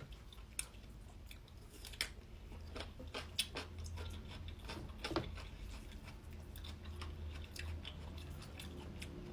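A person chewing and biting food close to the microphone: irregular short wet clicks and small crunches of mouth sounds over a low steady hum.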